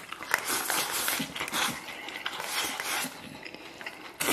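A mouthful of rice and braised pork belly with sauerkraut is shoveled from a steel bowl with chopsticks and slurped and chewed noisily for about three seconds, followed by quieter chewing with scattered sharp clicks and a loud click near the end.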